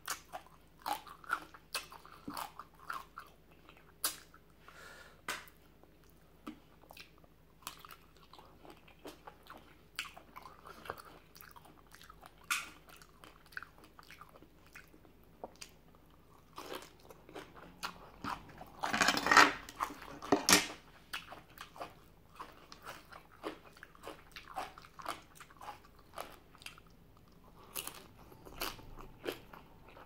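A person eating spicy seafood papaya salad, chewing with many short, sharp crunches throughout. A louder, noisier stretch comes about nineteen to twenty-one seconds in.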